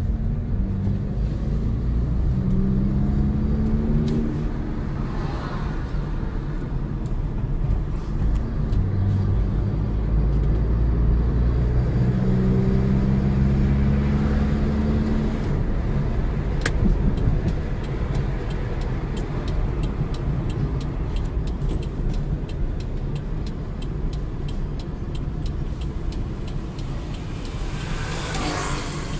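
Car engine and tyre noise heard from inside the cabin while driving. The engine note rises twice as the car accelerates: about a second in and again around twelve seconds.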